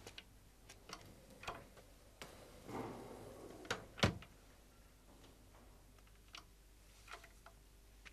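Quiet room movement sounds: faint irregular clicks and taps, a stretch of clothing rustle nearly three seconds in, and one louder thump about four seconds in, as a man in a jacket shifts and gets up.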